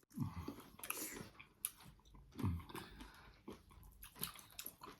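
Close-miked eating sounds: chewing, biting and wet mouth clicks, with two short low sounds falling in pitch near the start and about halfway through.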